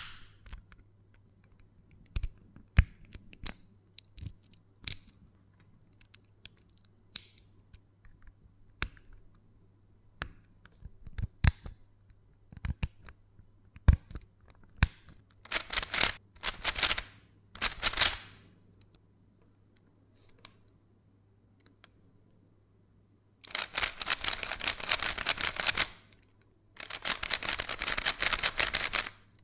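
GAN 14 MagLev Pro speed cube: scattered sharp plastic clicks as the pieces are handled and adjusted with a small metal key, then a few short bursts of fast turning about halfway through, and two longer runs of rapid turning near the end, a dense clatter of plastic pieces clicking past one another.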